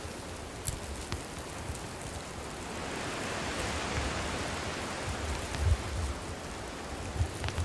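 Wood campfire burning with a steady hiss and a few sharp crackles, the hiss swelling in the middle; a few soft low thuds come in the second half.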